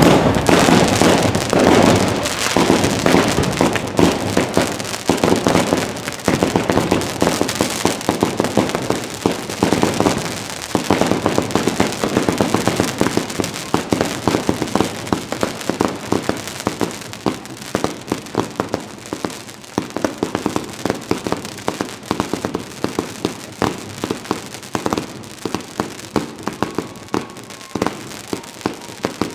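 Aerial fireworks firing in quick succession: a continuous string of sharp pops and crackling bursts, many a second. Loudest in the first few seconds, then a little quieter with the bangs more spread out.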